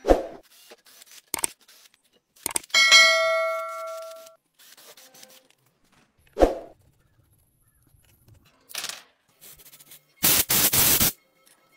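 A string of separate short sounds. First a knock, then a bright metallic ding that rings out for over a second, then another knock, and near the end a loud hiss lasting under a second with brief breaks in it.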